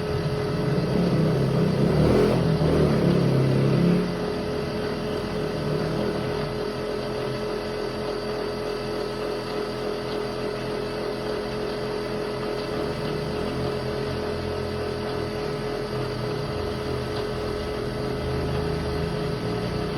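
High-speed grinding machine running with a steady hum and one constant tone. It is louder and rougher for about the first four seconds, then settles to an even level.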